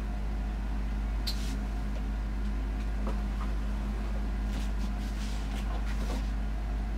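Steady low hum with a few faint clicks and rustles, the sound of plastic snake tubs being handled, scattered through it.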